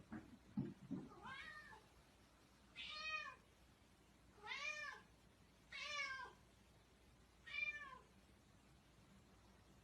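A cat meowing, five short rising-and-falling meows about a second and a half apart. A few soft knocks come in the first second.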